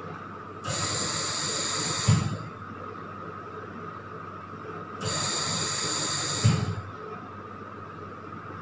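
Anaesthesia machine ventilator cycling: two hissing gas-flow bursts, each about a second and a half long and ending in a soft thump, about four and a half seconds apart, over a steady faint whine.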